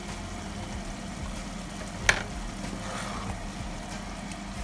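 Tomato stew sizzling and simmering in a pan as a blended onion and sweet pepper paste is poured in and stirred through with a spoon. There is a single sharp tap about two seconds in.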